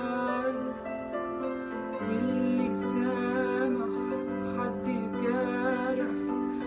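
A woman singing a slow Arabic ballad, holding long notes with vibrato, over a sustained instrumental backing.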